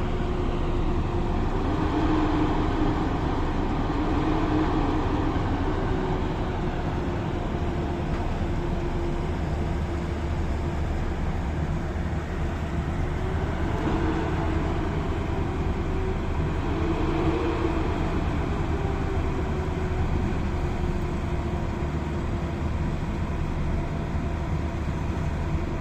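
South African Class 5E1 electric locomotives running at a standstill: a steady mechanical hum with a wavering tone that swells briefly twice, about 14 and 17 seconds in.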